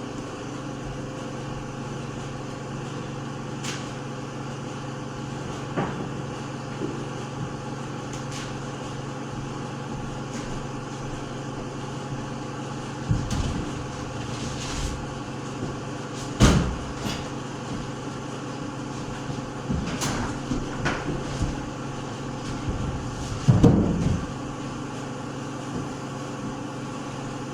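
A machine runs with a steady low hum, and sharp knocks and clanks come every few seconds, loudest about halfway through and again near the end.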